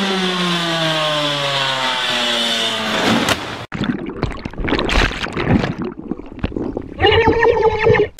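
Dirt bike engine with its revs falling steadily for about three seconds. Then, after a cut, irregular underwater water noises, ending with a short pitched, cry-like sound near the end.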